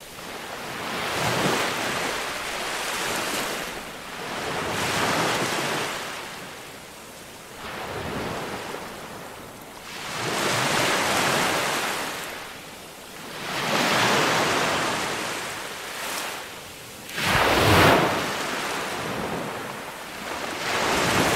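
Ocean surf: waves rushing in and drawing back, swelling and fading every few seconds. The biggest wave crashes near the end.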